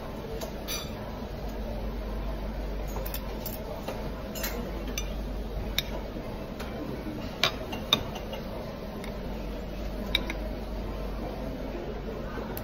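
Metal fork and spoon clinking and scraping against a ceramic plate, with scattered sharp clinks, the loudest two in quick succession past the middle, over a steady low hum.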